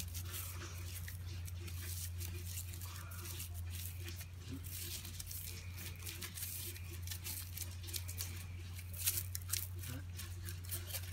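Plastic cling film crinkling and crackling in irregular little bursts as a roll of it is twisted and squeezed tight between the hands, over a steady low hum.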